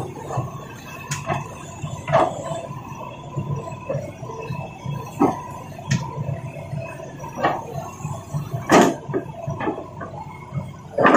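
Irregular knocks and clacks of rocks being loaded, over a steady low motor hum; the loudest knock comes near the end.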